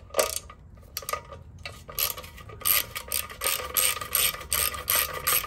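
Socket ratchet wrench clicking as a bolt on the motorcycle's oil tank mount is backed out: a few scattered clicks, then from about two and a half seconds in a fast, even run of about five clicks a second.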